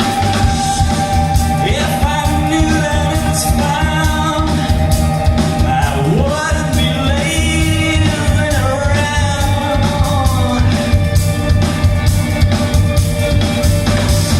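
A band playing a song with a singer; the singing voice comes in about two seconds in and drops back near the middle, over a steady beat.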